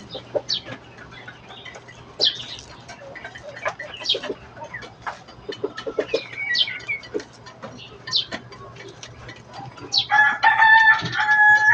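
Birds calling: short high chirps throughout, then a louder, longer held call near the end.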